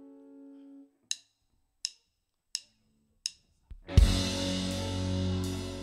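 A held keyboard chord dies away, then four evenly spaced drumstick clicks count in and a rock band comes in together about four seconds in with a cymbal crash, drums and electric guitar.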